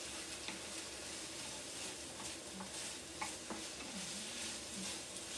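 Diced chicken and ketchup sizzling in a frying pan while being stirred with a wooden spatula, with small scrapes and taps of the spatula against the pan. The ketchup is being cooked to take off its sourness.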